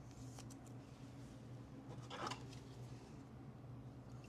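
Faint handling of trading cards and their packaging: a few light ticks early on and a brief rustle about two seconds in, over a steady low hum.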